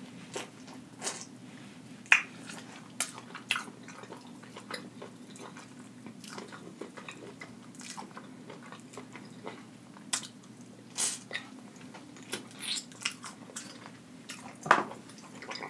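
Close-miked chewing of sauce-covered rotisserie chicken, with wet mouth smacks and clicks at irregular intervals. The loudest smacks come about two seconds in and near the end.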